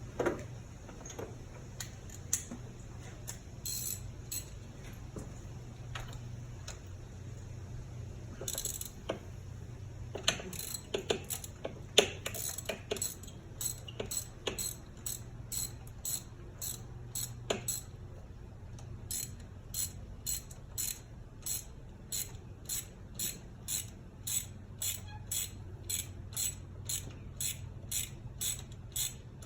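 Hand ratchet clicking as it is worked back and forth on a fastener in the engine bay, with scattered clicks and knocks at first, then a steady stroke rhythm of about two clicks a second in the second half. A steady low hum runs underneath.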